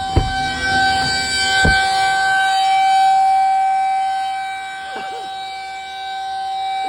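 Federal Signal 2001 rotating tornado siren sounding up close: one steady high tone held at a single pitch, its loudness slowly swelling and fading as the siren turns. Two brief low thumps come in the first two seconds.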